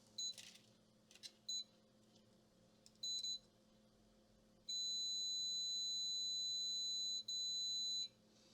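High-pitched electronic beeping of a multimeter's continuity buzzer as the probes touch points on a laptop motherboard: a few short beeps, then a long steady beep of about two and a half seconds followed by another of nearly a second.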